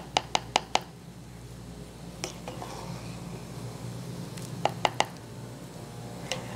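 A spatula knocking against a pan and bowl while broccoli is scraped into a skillet: five quick taps at the start, another about two seconds in and a cluster of three near five seconds. A steady low hum runs underneath.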